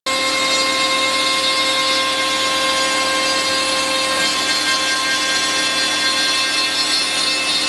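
CNC router spindle milling into a wooden panel, cutting a recess for a side handle: a steady high whine over the constant rasp of the cutter in the wood. It starts abruptly and runs level with no change in pitch.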